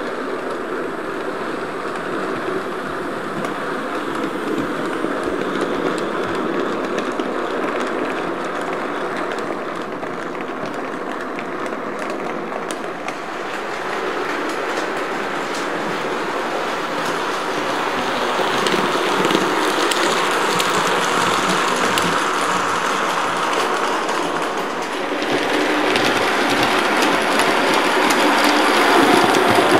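OO-gauge model train, a Murphy Models 071 Class locomotive hauling a rake of empty wagons, running along the layout's track. The sound grows louder as the train comes closer over the last several seconds.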